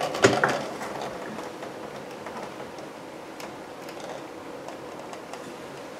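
Knocks from a car's rear hatch glass and spoiler panel being lowered by hand, a couple of sharp ones just after the start, then a few faint clicks and rustles as it is settled and pressed down.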